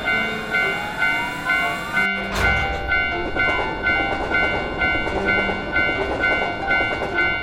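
Railroad crossing warning bell ringing its steady "kan-kan", about three strikes every two seconds. About two seconds in, a train rushes through the crossing with a rumbling, rattling noise that lasts to the end.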